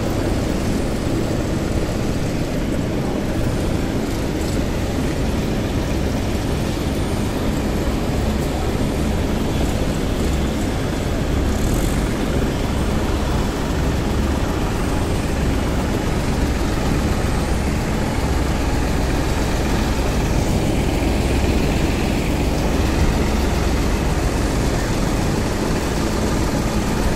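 Farmtrac tractor's diesel engine running steadily while it works its front-end loader.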